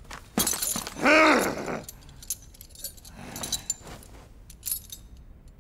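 Metal clinking and jangling, with a man's loud cry, rising then falling in pitch, about a second in.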